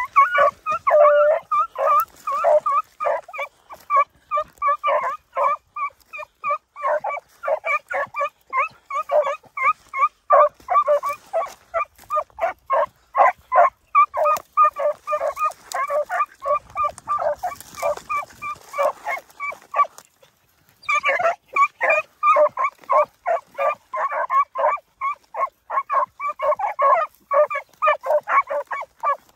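Beagles baying in quick, repeated chop barks, several a second, as the hounds give mouth on a rabbit's track through brush; the barking breaks off for about a second about two-thirds of the way through, then resumes.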